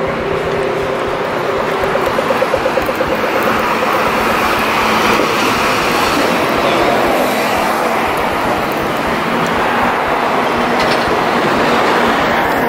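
Steady city street traffic noise from passing vehicles, with a brief pulsing engine throb about two seconds in.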